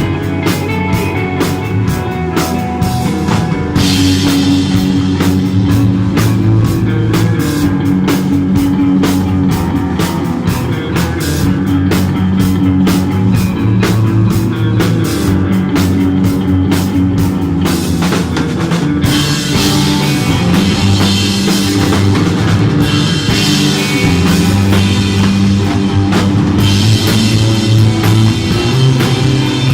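A desert-rock band playing an instrumental live, with electric guitar over a drum kit. The cymbals come in strongly about four seconds in.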